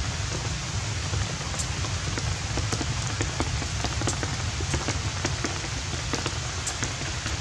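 Steady rain falling, with scattered sharp drops splashing on a wet tiled floor.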